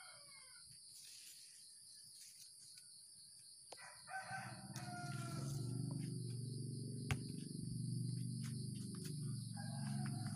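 A rooster crowing about four seconds in, with another fowl call near the end, over light clicks and rustles of tomato plants being handled. From about four seconds a louder low hum with shifting tones joins and carries on.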